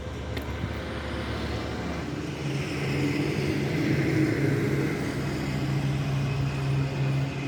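Heavy diesel engine running. It grows louder about two seconds in and then holds a steady note.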